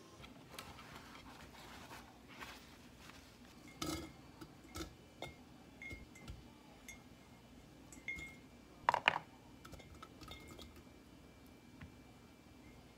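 Onion pieces, garlic cloves and raw shrimp being dropped into a large glass jar: a scattering of light taps and clinks against the glass, some ringing briefly, with the loudest clink about nine seconds in. Faint rustling of a paper towel comes first, as the shrimp are patted dry.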